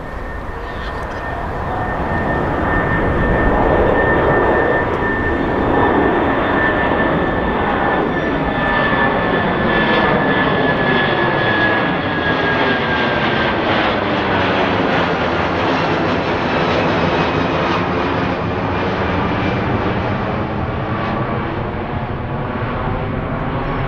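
Jet airliner passing close by, its engines making a loud, steady noise that builds over the first few seconds. A high whine runs through it and slowly falls in pitch as the aircraft goes past.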